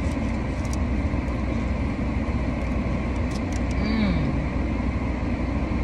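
Steady hum inside a parked car's cabin from the idling engine and air-conditioning fan, with a few light crinkles of a foil wrapper.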